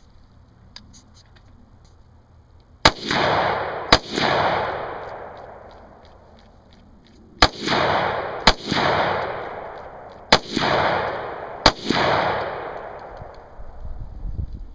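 AR-15 rifle firing six shots in three pairs, the shots in each pair about a second apart, each shot followed by a long echo that fades over about two seconds.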